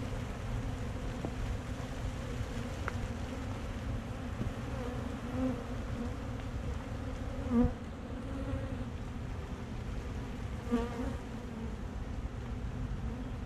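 Honey bees buzzing steadily around an opened hive, with a bee buzzing louder close by a few times.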